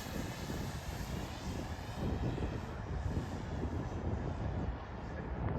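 Electric motor and propeller of a large 3D-printed RC Edge 540 stunt plane in flight, a steady distant buzz whose tone drifts as the plane moves about the sky.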